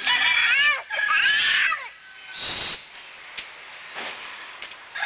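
A young child cries out twice in short, high-pitched wails in the first two seconds. A brief hiss follows about halfway through.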